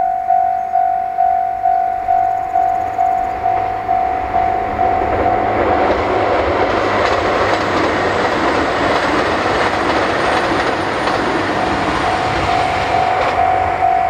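A level-crossing warning bell rings steadily at about two strikes a second while a JR Hokkaido Kiha 261 series diesel limited express passes. From about five seconds in, the train's rush of wheel and engine noise builds to a loud peak, drowning the bell, then eases off near the end as the bell comes back through.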